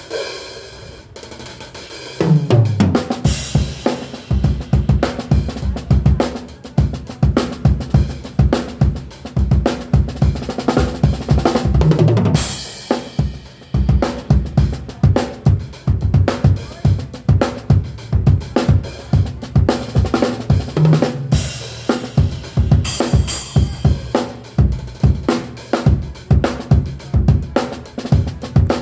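Full drum kit played as a steady groove for a soundcheck, kick and snare keeping time, with a descending tom fill about two seconds in and cymbal crashes along the way.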